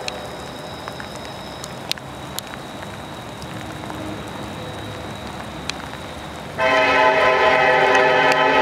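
Approaching CSX EMD SD70ACe freight locomotive: a low rumble with a faint steady high whine, then its air horn starts suddenly about two-thirds of the way in, a loud held chord of several notes.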